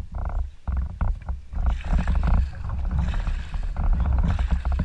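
Wooden canoe paddle strokes splashing and swishing through river water, with wind rumbling on the microphone.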